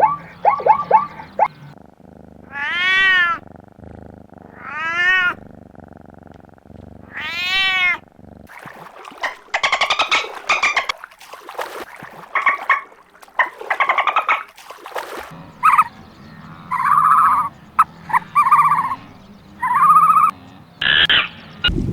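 Cat meowing: three drawn-out meows, each rising then falling in pitch, a couple of seconds apart. These are followed by a run of shorter animal calls.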